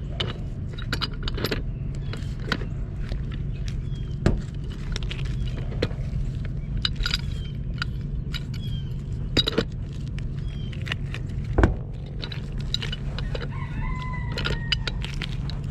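Metal tools and pipe fittings clicking and knocking now and then over a steady low hum, during galvanized gas pipe fitting work. A rooster crows once in the background near the end.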